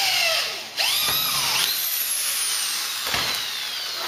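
Handheld electric drill boring across a 1-inch square aluminium tube and its corner connector for a quarter-20 through bolt. The motor whine stops briefly just under a second in, then starts again and slowly drops in pitch as the bit cuts.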